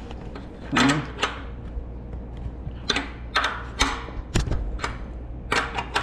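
A 9/16 open-end wrench clinking on the steel nuts and bracket under a carousel screen-printing press pallet as the nuts are turned to raise the pallet. About nine sharp metallic clicks, unevenly spaced.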